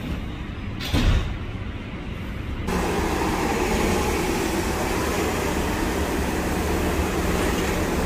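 Inside a subway car: a low running hum with a short clunk about a second in. Then the steady engine hum and noise of city buses idling and moving through a bus terminal.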